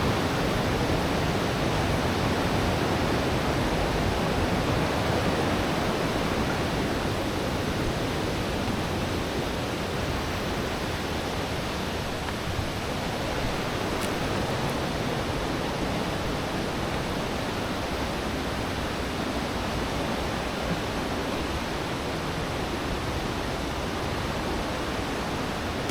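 Steady, even rushing noise with no distinct events, easing slightly in level over the first several seconds.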